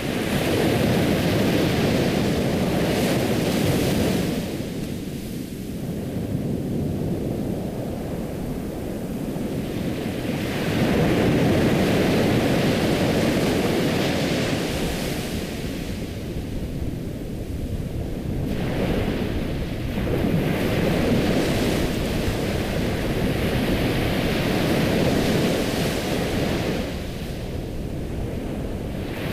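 Ocean waves breaking and washing on a shore, a rushing surge that swells and falls back about every ten seconds.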